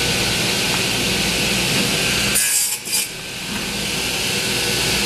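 10-inch radial arm saw running, its blade cutting the waste from a narrow walnut strip. The cut comes about two and a half seconds in as a brief, higher-pitched rasp in two quick parts over the steady sound of the running saw.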